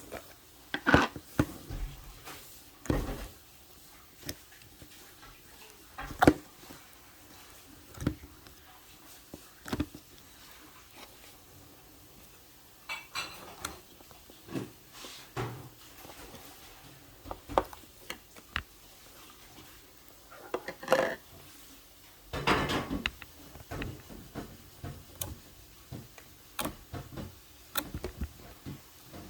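Dishes and cutlery clinking and knocking at irregular intervals, a few strikes ringing briefly.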